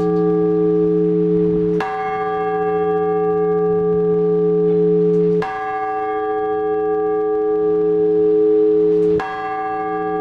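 Orthodox church bell struck three times at a slow, even pace, about every three and a half seconds. Each stroke rings on with a long hum until the next.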